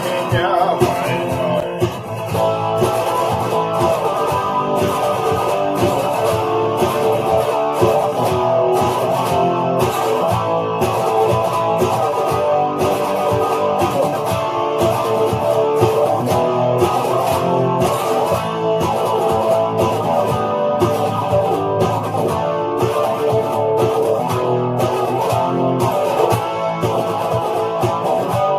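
Instrumental rock passage with no singing: guitars and bass guitar over a steady beat.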